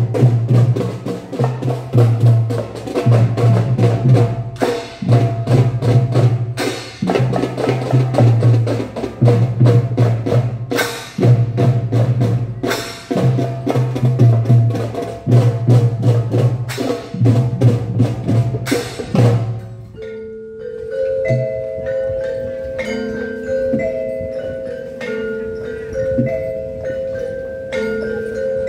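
Children's drum band of snare and bass drums playing a dense, fast beat over regular low bass-drum booms. About twenty seconds in the drumming stops and a slow melody of single pitched notes carries on.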